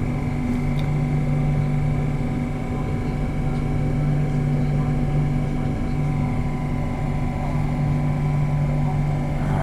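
Steady mechanical hum and low rumble inside a passenger train's sleeping-car compartment as the train pulls slowly out of the station, with a constant low drone and a thin steady whine above it.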